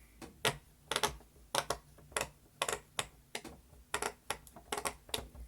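Silicone pop-it fidget toy being pressed bubble by bubble: a string of sharp little pops, about three a second, often in quick pairs.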